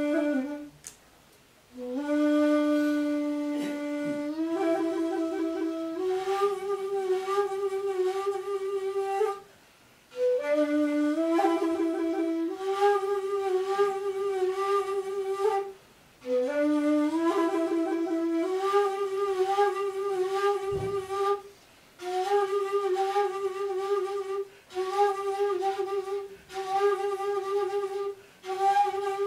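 Solo shakuhachi playing a honkyoku: breathy phrases that step up from a low note to a long held note with a wavering vibrato, separated by short pauses for breath. Toward the end the phrases shorten into brief repeated held notes.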